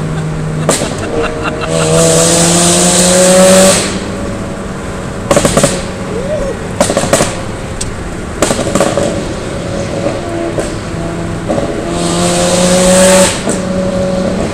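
Car engine revved hard twice, each run rising in pitch for about two seconds with a loud high hiss, and running more quietly between the runs with scattered clicks and knocks.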